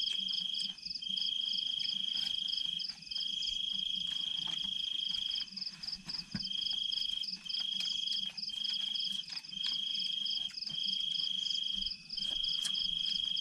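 Crickets trilling at night: one insect trills in long unbroken runs of one to two seconds with short breaks, over a faster, higher pulsing chirr from another insect that never stops.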